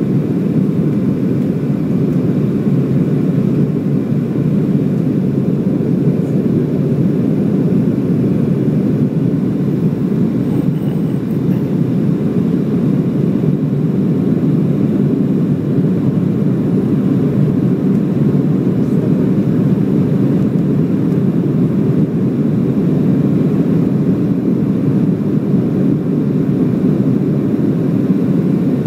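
Steady low drone of a Boeing 737's turbofan engines and the airflow past the fuselage, heard inside the passenger cabin during the climb after takeoff.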